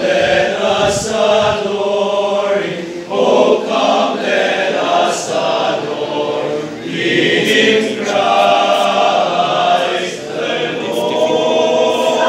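Small choir of young male seminarians singing a Christmas carol together, in held phrases.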